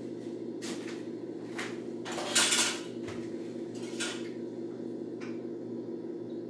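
Kitchen dishes and utensils clattering: a few separate clinks and knocks, with a louder rattling cluster a little over two seconds in, over a steady low hum.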